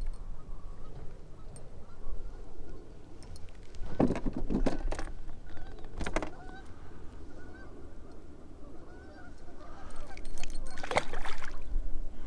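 Geese honking on and off, with louder rough bursts about four seconds in and again near the end.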